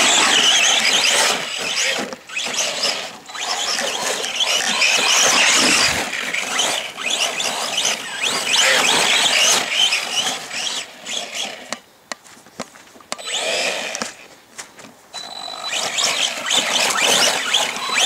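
An Arrma Senton 3S BLX RC short course truck driving hard over wet grass. Its brushless motor and drivetrain whine in surges as the throttle comes on and off, along with tyre noise through the grass. It goes quieter for a few seconds past the middle, then picks up again near the end.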